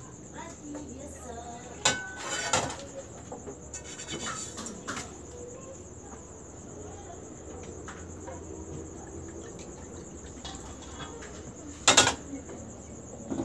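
Small metal frying pans clanking against a gas stove a few times, a pair of knocks about two seconds in and the loudest clank near the end. Under them runs a steady high chirping of crickets.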